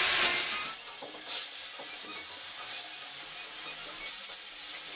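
Marinated lamb chops sizzling in hot oil on a preheated baking tray. The hiss is loudest in the first second, then settles to a steady, quieter sizzle with small crackles.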